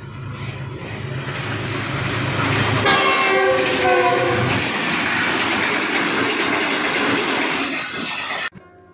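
Passenger train running through a station at speed: the rumble builds, the locomotive sounds its horn for about a second and a half as it comes level, then the coaches rush past with wheels clattering on the rails. The sound cuts off suddenly near the end and gives way to plucked-string music.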